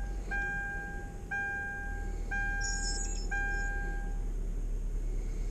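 Car's warning chime dinging about once a second, a clear two-note tone each time, stopping about four seconds in. A steady low hum runs underneath.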